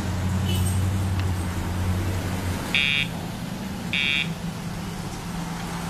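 Two short, high electronic beeps about a second apart, over a low, steady hum that fades out just before the first beep.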